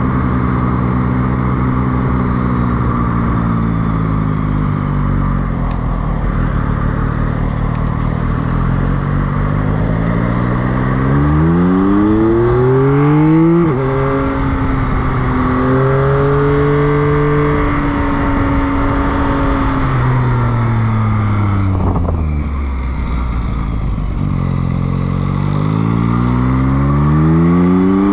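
Motorcycle engine heard from on board, slowing with the revs falling, then accelerating hard with the pitch climbing and dropping abruptly at a gear change about halfway. The revs fall again and climb once more near the end, over a steady rush of wind and road noise.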